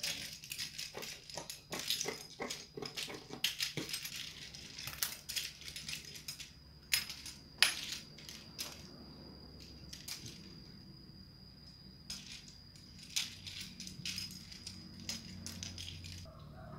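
Scissors cutting through lace fabric: a quick run of sharp snips and clicks, thinning out about halfway through as the cut pieces are handled with soft rustling.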